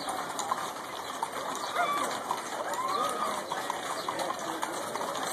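Outdoor street crowd noise as a column of horses passes, with a few shrill rising-and-falling calls about two and three seconds in.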